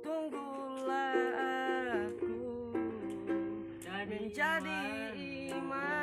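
Ukulele playing a steady run of plucked notes under a singing voice that holds long, wavering notes, twice.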